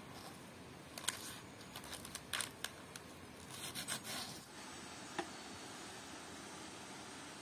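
Kitchen knife slicing crisp lettuce on a wooden cutting board: a series of quick, sharp cuts in the first half or so, then only a faint steady hiss with a single tap about five seconds in.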